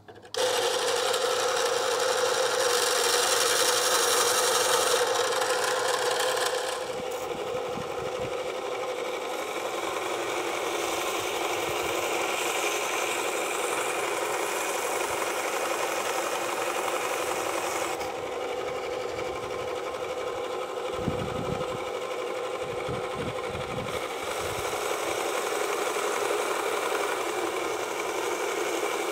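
Inland DB-100 diamond band saw running steadily while its blade cuts through a dead Acropora coral branch. It starts just after the opening and eases a little after about seven seconds.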